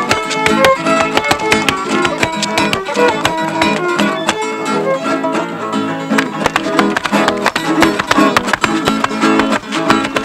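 Viola caipira picked in a quick, busy run of plucked notes.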